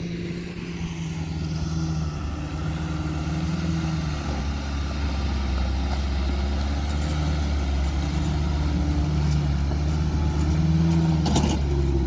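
Suzuki Samurai's four-cylinder engine running at low, slightly varying revs as it crawls over rocks. There is a single sharp knock near the end.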